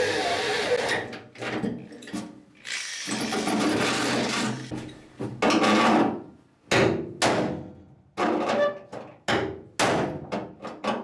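Corded electric drill boring through a truck tailgate in two spells of a few seconds each. Then a hammer strikes a bolt used as a punch through the drilled hole, about two blows a second, each with a short metallic ring, pounding the dent out from behind.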